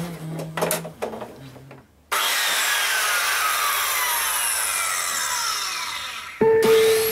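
A few handling clicks, then a circular saw's whirr starts abruptly about two seconds in and falls steadily in pitch as it fades, like the blade spinning down. Music begins near the end.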